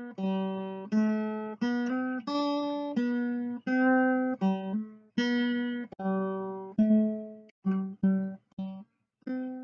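Acoustic guitar music: a slow melody of single plucked notes, each ringing and fading. The last note is left to ring out near the end.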